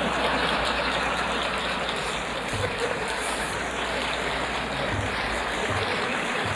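A large audience applauding and laughing after a joke, a steady even wash of clapping.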